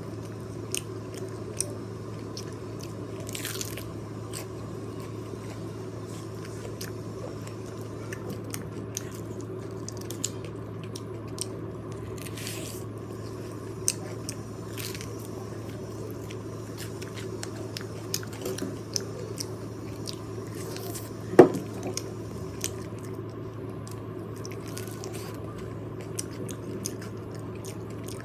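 Close-miked eating sounds: a person biting into and chewing crispy fried chicken, with many short crunchy clicks over a steady low hum. One louder knock comes about three quarters of the way through.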